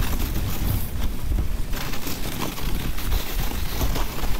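Dog sled moving over icy snow: a steady rumble and hiss of the runners sliding on the trail, with wind buffeting the microphone.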